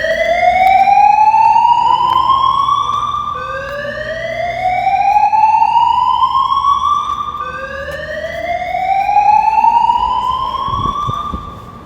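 Building fire alarm's voice-evacuation system sounding its slow-whoop tone: three rising sweeps, each about four seconds long, going from low to high and starting again at once. It is the signal to evacuate the building.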